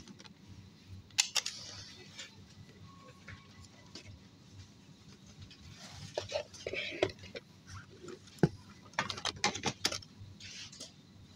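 Plastic bowls and perforated plastic storage baskets knocking and clattering against each other as they are handled, with sharp clacks about a second in and a quick run of them near the end.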